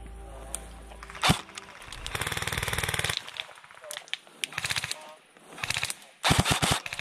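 Airsoft electric rifles firing several full-auto bursts of rapid clicking shots, with a single sharp crack about a second in before the first burst.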